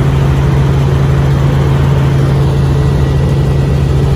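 Helicopter in flight: a loud, steady engine and rotor drone.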